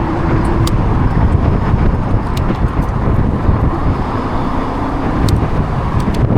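Road traffic from a long queue of cars passing close by, under a steady, heavy rumble of wind on the microphone of a moving e-bike, with a few light clicks scattered through it.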